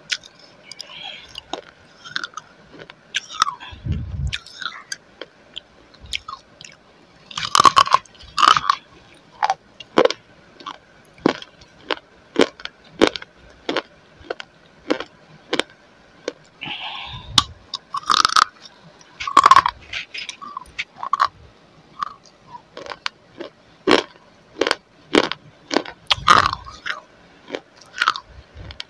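Close-miked crunching and chewing of an edible clay roll: sharp crisp crunches about one or two a second, with several louder bites among them.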